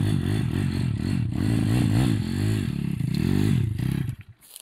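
Stomp Racing 140cc YX pitbike's single-cylinder four-stroke engine revving hard under load on a climb, its pitch repeatedly rising and falling as the throttle is worked. About four seconds in the engine sound cuts off abruptly.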